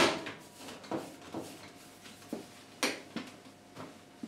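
Sharp plastic clicks and knocks, about eight in all, as the plastic control-panel fascia of a Candy Grando washing machine is pressed back on and its plastic lugs snap into place; the loudest come right at the start and about three seconds in.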